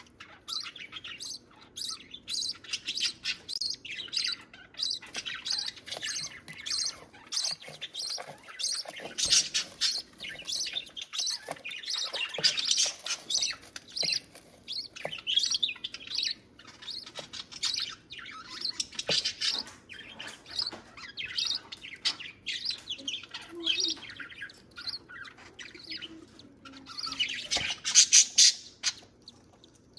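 Budgie chicks and their mother chirping in quick, short, high calls as the chicks are fed, with a louder burst near the end.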